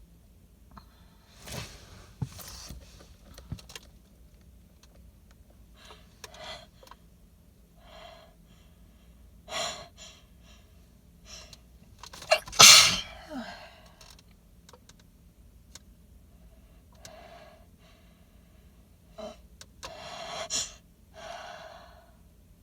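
A woman sneezing into cupped hands, wet and messy, set off by flower pollen, with gasping inhales building up between the sneezes. Several bursts are spread across the stretch, and the loudest, sharpest sneeze comes a little past halfway.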